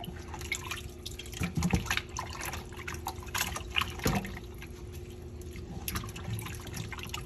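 Raw chicken pieces being worked by gloved hands in a pot of water, with irregular splashing, sloshing and dripping, loudest about a second and a half in and again about four seconds in.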